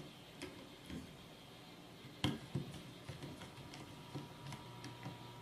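Faint clicks and ticks of a screwdriver and small screws against a circuit board and a metal chassis as the board is screwed down, with one sharper click a little past two seconds in and a run of lighter ticks after it.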